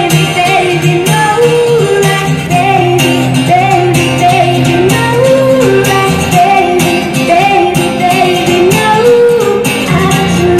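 A woman singing into a microphone with acoustic guitar accompaniment, amplified through stage speakers.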